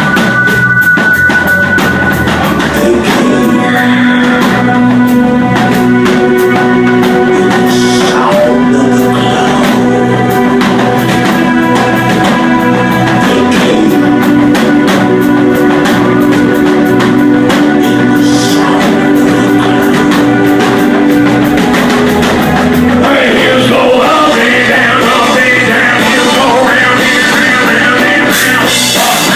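Band music with singing: long held vocal notes over a steady drum beat, the playing growing busier near the end.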